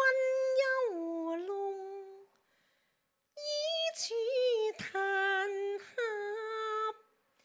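A woman's voice singing Chinese opera lines into a microphone, without accompaniment: long held notes that slide between pitches, two phrases with a pause of about a second between them.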